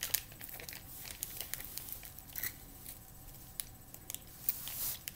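Faint, scattered crinkling and clicking of a plastic ice-pop sleeve being squeezed in the hand while the ice pop is eaten from it.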